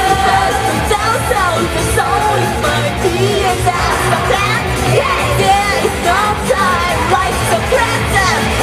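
Female idol group singing an upbeat J-pop song live into microphones over backing music with a steady beat.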